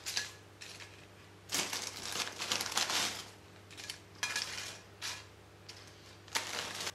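Purple and yellow corn tortilla chips crackling and rustling as they are set by hand onto a ceramic plate, in several short bursts; the longest starts about a second and a half in and lasts nearly two seconds.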